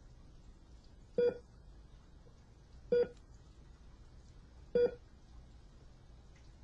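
Three short electronic beeps at an even pace, about two seconds apart, each a single steady tone.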